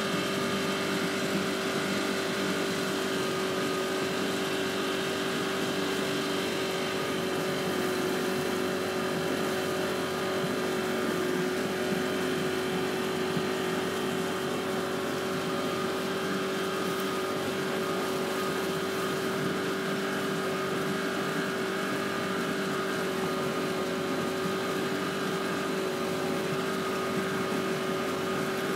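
Boat engine running steadily at an even, unchanging pitch while under way.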